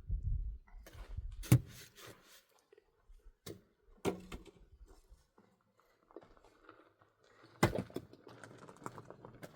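Scattered knocks and clatter of things being handled, with three sharper knocks about a second and a half in, about four seconds in, and near the end, and a low rumble during the first two seconds.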